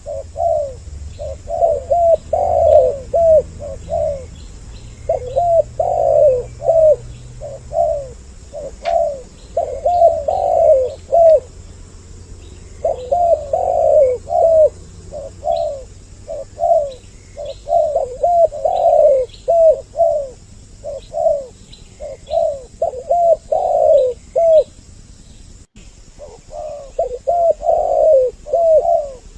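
Two spotted doves cooing over each other in repeated phrases, with short pauses between groups of calls. Faint high chirps of small birds sound behind them.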